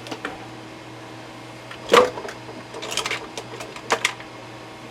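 Scattered small clicks and clacks of parts and tools being handled at a workbench, loudest in one sharp clack about two seconds in, with a few more clustered near the end, over a steady low electrical hum.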